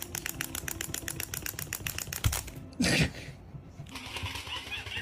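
Rapid, even clicking, about ten clicks a second, that stops after about two and a half seconds, followed by a short loud burst of noise.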